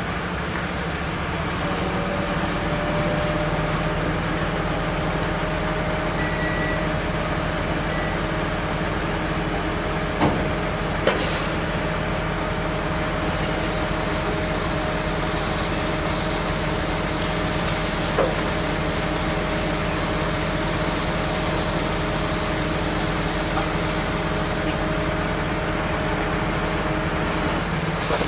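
Sheet-piling rig running with a steady mechanical drone. A higher steady hum joins it about two seconds in and stops near the end, and a few sharp metallic knocks come in between.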